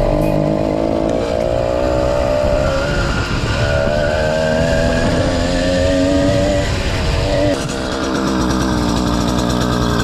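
A 100cc two-stroke motorised-bicycle engine kit running under way. Its pitch climbs as it is throttled up a few seconds in, then eases back and dips briefly before rising again.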